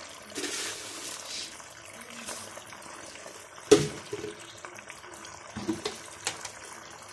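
Garlic, ketchup and soy sauce bubbling in a wok, with one sharp knock about halfway through.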